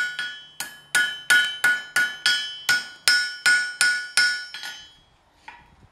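Blacksmith's hand hammer striking an iron rod on an anvil, about three blows a second, each one ringing brightly. The blows die away a little before the end, followed by one soft knock.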